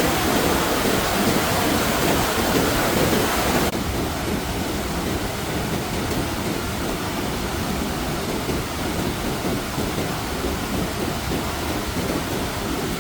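Steady rushing water noise from the flood, an even hiss and rumble. About four seconds in it turns abruptly duller and a little quieter.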